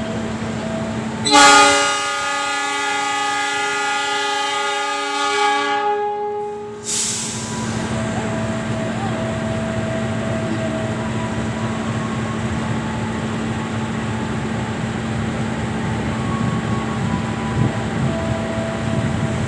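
Locomotive horn of the Ranggajati passenger train giving one long blast of about five seconds, starting a second in, followed by the steady rumble of the train running.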